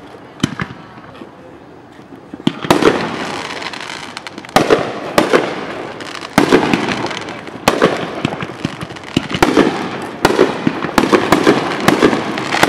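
Aerial fireworks shells bursting, about a dozen sharp bangs, each followed by a rumbling echo. After a faint first bang there is a lull of about two seconds, then the bangs come roughly once a second and closer together near the end.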